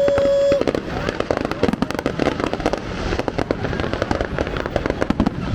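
Fireworks display going off in a rapid, dense barrage of crackling pops and bangs. A steady whistle-like tone cuts off about half a second in.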